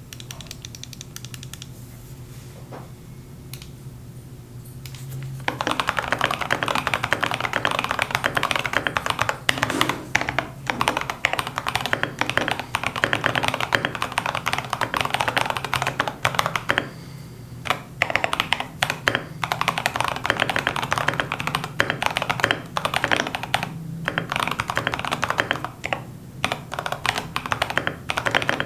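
Typing on a mechanical keyboard with lubed Gazzew Boba U4T tactile switches and MT3 keycaps, in an NCR80 case damped with silicone, giving a deep "thocky" sound. At first there are a few single, quiet keystrokes. From about five seconds in comes fast continuous typing, with a couple of brief pauses.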